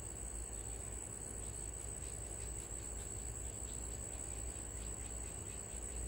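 Cricket singing in one steady, unbroken high-pitched trill, with a low steady rumble beneath it.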